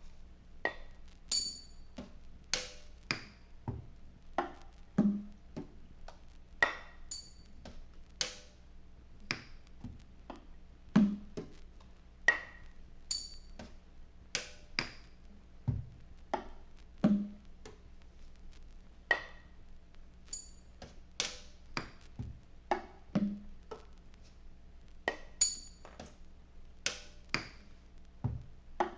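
Sparse experimental music: irregular percussive knocks and clinks, about one or two a second, some with a short ringing ping, over a steady low hum.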